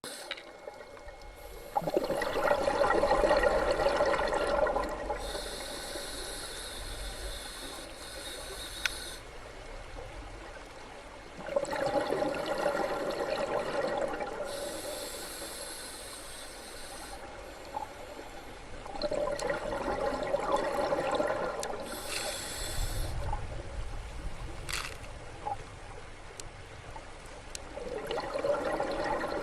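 Scuba diver breathing underwater through a regulator. A few seconds of bubbling exhale alternate with a hissing inhale, in a steady cycle about every eight to nine seconds.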